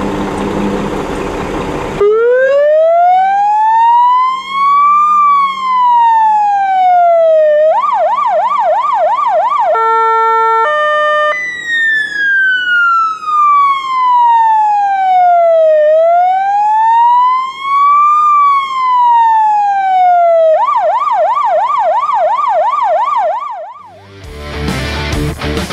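Fire-brigade vehicle's electronic siren worked through its tones. First comes a slow wail rising and falling over several seconds, then a fast yelp warbling about four times a second. Next is a brief steady horn tone, then another wail and a second yelp.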